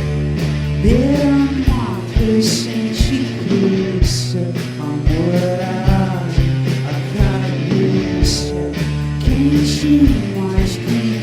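Live psychedelic rock band playing, with bass, drums and guitar, and a voice singing over them. Cymbal crashes come a few times.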